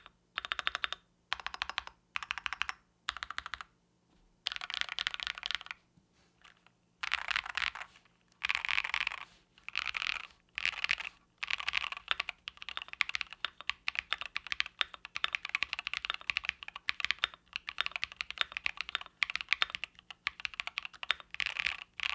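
Typing on a CHOSFOX CF81 aluminium mechanical keyboard with Husky linear switches and PBT keycaps: rapid keystroke clacks in short bursts with brief pauses, then continuous fast typing from about a third of the way in.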